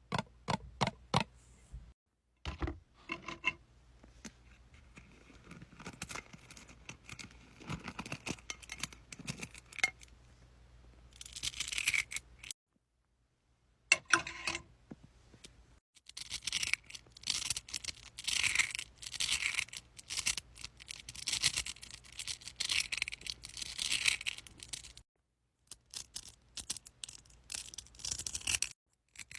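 Close-up crafting handling sounds: snipping, scraping and rustling of paper and tape, in a string of short clips that break off abruptly between them.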